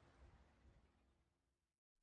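Near silence: a faint low hiss fading out, with a moment of dead silence near the end.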